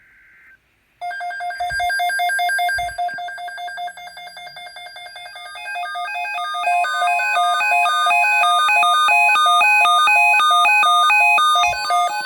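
Emergency alert tones from a NOAA Weather Radio receiver heralding an EAS Flash Flood Watch. After a brief buzz, a loud, fast-pulsing run of electronic beeps steps between several pitches. About halfway through, a steady tone near 1 kHz joins it.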